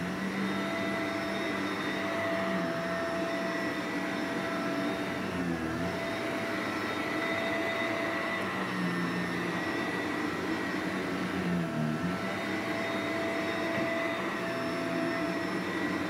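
Shark Navigator upright vacuum cleaner running steadily as it is pushed back and forth over thick shag carpet, its tone dipping briefly twice.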